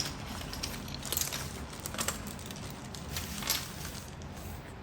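Spare plastic keycaps being handled, with light rustling and a few soft clicks.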